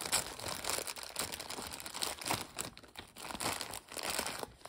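Clear plastic bag crinkling in irregular crackles as hands handle it and work a small plastic figure part out of it.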